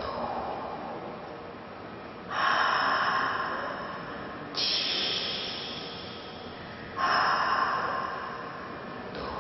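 Loud breathy hissing in repeated swells: each starts suddenly and fades away over about two seconds, with a new one about every two and a half seconds.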